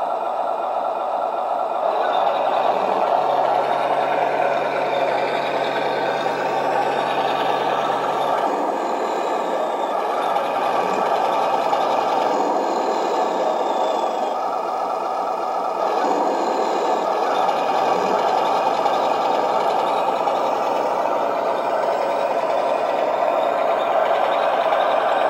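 Heng Long 1:16 RC tank, converted to an M7 Priest, driving and turning on a wooden floor: electric drive motors whining up and down with speed while the tracks rattle over the floor.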